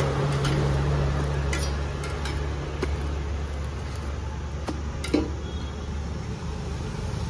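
Cooking utensils clinking sharply against a griddle pan a few times, over a steady low hum.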